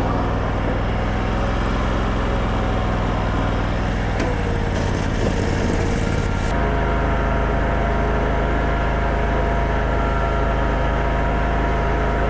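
Engine of a stand-up mini skid steer running steadily, with an abrupt change in its tone about halfway through.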